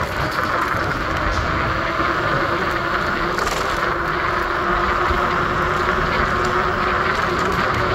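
Steady city street traffic noise from passing cars and taxis, with a low steady hum that grows stronger about halfway through.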